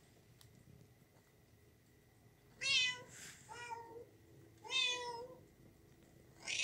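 Kitten meowing: three short, high-pitched meows about two seconds apart, starting a little over two seconds in, the first two each trailing off into a softer second note.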